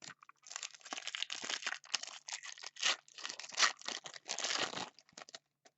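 Trading cards and their foil pack wrapper being handled: a run of quick crinkling, rustling strokes that stops shortly before the end.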